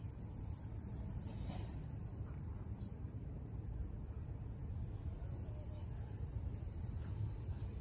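Outdoor ambience: a steady, high-pitched pulsing insect trill throughout, with a few faint bird chirps around the middle and a low background rumble.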